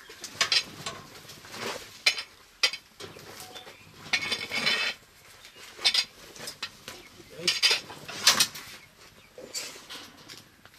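Irregular metallic clinks, scrapes and rattles of things being handled inside a wire-mesh coop, with a longer rattle about four seconds in.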